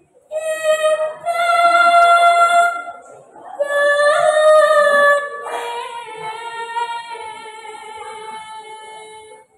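A girl singing tembang macapat, Javanese sung poetry, solo and unaccompanied, in long drawn-out notes. After two phrases, her last note is held for about four seconds, slowly fading before it stops.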